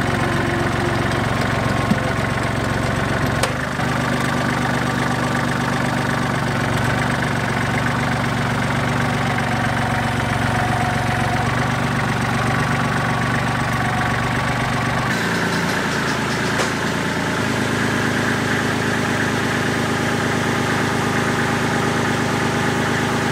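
Kubota compact tractor's diesel engine running steadily, its note shifting slightly about 15 seconds in.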